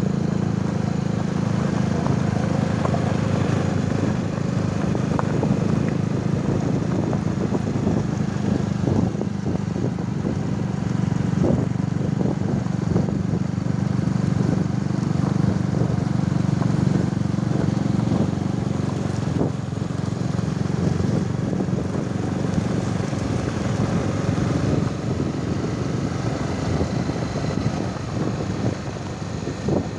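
Small motorcycle engine running steadily at low road speed, with scattered knocks and rattles.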